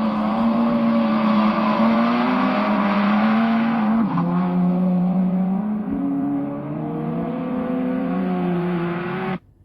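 Racing car engine running at a steady, high pitch. The note drops suddenly about four seconds in, climbs again about six seconds in, and cuts off abruptly near the end.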